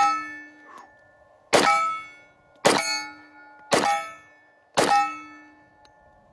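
Glock 10mm pistol firing 180-grain hollow point rounds: four shots about a second apart, each followed by a metallic ring that fades over about half a second.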